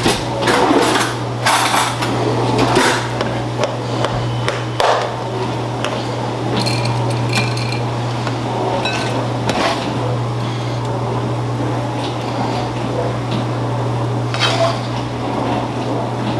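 Kitchen utensils knocking and scraping as cooked rice is portioned into a glass bowl, then cooked steak cubes are spooned out of a frying pan. There is a run of clinks and knocks in the first few seconds, scattered clinks and scrapes after, and a steady low hum underneath.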